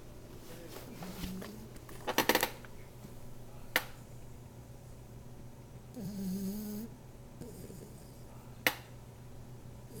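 Sleeping dog snoring: one pitched snore of nearly a second about six seconds in, with a fainter one near the start. A short rattle of sharp clicks about two seconds in, and single sharp clicks later, are the loudest sounds.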